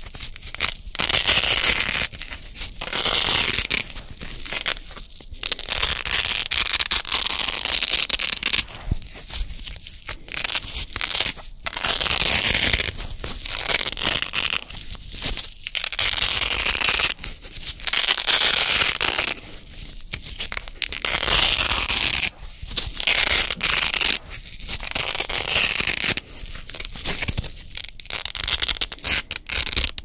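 Red hook-and-loop (Velcro) pads pressed together and torn apart over and over close to the microphone. Each peel is a crunchy ripping rasp lasting a second or two, with short pauses between rips.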